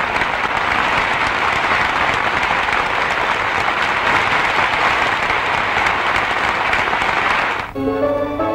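Applause from a room full of people, dense and steady, breaking off near the end as music begins.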